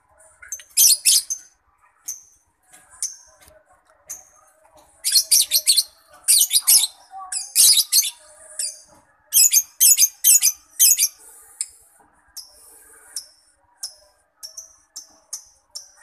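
Lovebird singing: high-pitched chattering chirps. A few single chirps come first, then dense rapid clusters through the middle, then a quick run of short chirps near the end.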